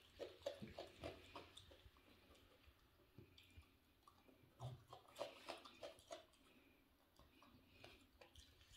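A raccoon chewing crunchy cabbage: faint runs of small crisp crunches, busiest in the first two seconds and again about five seconds in.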